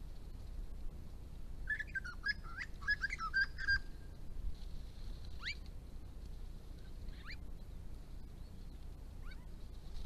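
Birds calling: a burst of rapid chattering notes a couple of seconds in, then three single short calls that sweep sharply upward, spaced a couple of seconds apart, over a faint steady high hiss.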